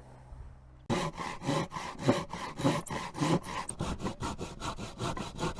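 Hand saw cutting through a piece of 2x2 timber with quick, even back-and-forth strokes, about three to four a second, starting about a second in.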